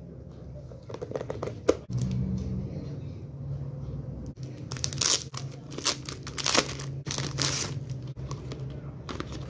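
Clear plastic sleeve and cardboard packaging of a DVD box set crinkling and rustling as it is unpacked by hand, in several loud bursts in the middle and later part, after a sharp tap about two seconds in. A steady low hum runs underneath.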